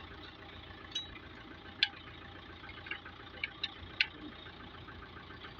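Low steady engine-like hum in the background, with about half a dozen sharp metallic clicks and clinks scattered through the middle, typical of tools and parts being handled on an engine.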